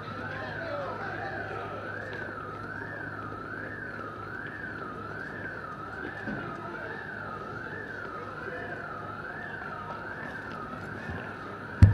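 Police siren wailing, its pitch sweeping steadily up and down about once a second. A single sharp thump near the end.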